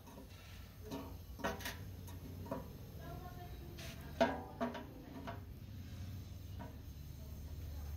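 A handful of sharp knocks and clinks, scattered irregularly, over a steady low hum.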